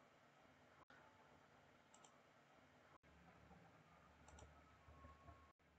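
Near silence: faint room tone with two faint, sharp double clicks a bit over two seconds apart, a computer mouse button pressed and released.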